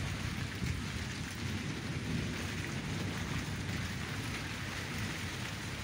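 Rain falling steadily in a thunderstorm, an even hiss, with a low rumble of thunder running underneath and no sharp cracks.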